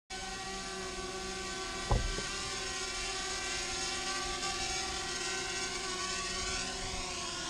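Small quadcopter drone hovering low, its propellers giving a steady whine of several tones at once, with a single thump about two seconds in. Near the end the pitch slides down.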